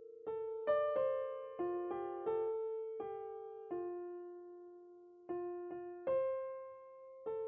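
Slow, gentle piano music: single notes and small chords struck about once or twice a second, each ringing out and fading.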